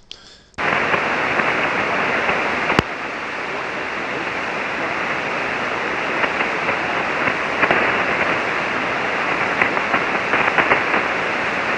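Ham radio receiver on single sideband putting out a steady hiss of band noise with no readable signal, cut off above the voice band. It starts suddenly about half a second in, and there is one sharp click about three seconds in. The other station cannot be copied.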